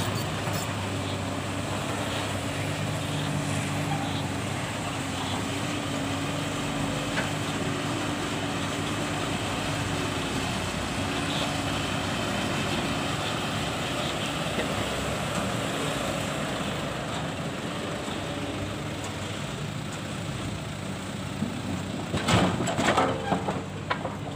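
Diesel engines of Mitsubishi Canter dump trucks running steadily, with one truck rolling slowly past close by. Near the end comes a short burst of loud clattering knocks.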